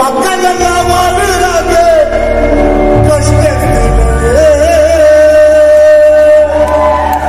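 Live band playing a Tamil gana song, a voice singing a held, wavering melody over heavy bass and drums, loud as heard from the crowd.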